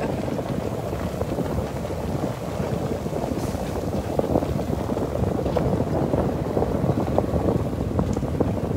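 Utility cart driving along a dirt path, a steady rough rumble with many small rattling clicks, mixed with wind buffeting the microphone.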